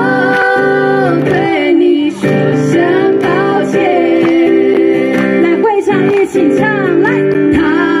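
Women singing live, with an acoustic guitar accompanying them.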